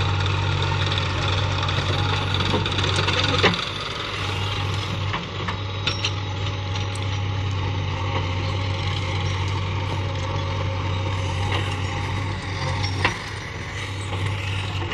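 Heavy diesel engine running steadily, with a few sharp knocks, the loudest about three and a half seconds in and another near the end.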